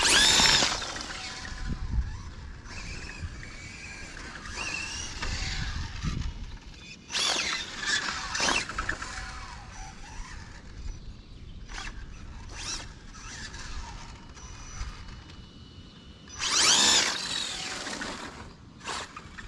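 Drag Race Concepts DR-10 RC drag car launching: a loud, rising high-pitched whine and squeal in the first second. More short squealing whine bursts follow, with another loud one near the end.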